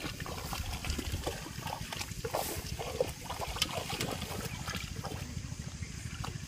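Shallow muddy water splashing and sloshing as someone wades through it, with a metal pot pushed along in the water: a run of small, irregular splashes over a steady low rumble.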